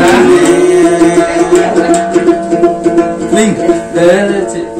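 Đàn tính, a long-necked Thai lute, plucked and played on in steady held notes, with a brief voice near the end.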